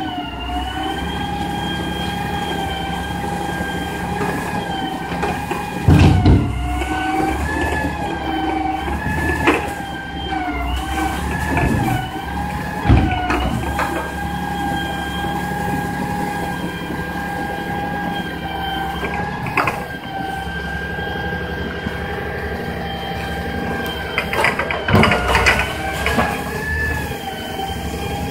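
Knuckle-boom grapple loader on a trash truck at work: the diesel engine runs under a steady hydraulic whine that rises and falls slightly in pitch as the boom moves. Debris crashes loudly into the truck's body several times, hardest about six seconds in and again near the end.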